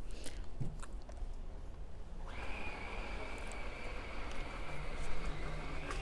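Wind rumbling on the microphone, with a few handling knocks in the first second. From about two seconds in, a steady high whine joins and rises in pitch near the end.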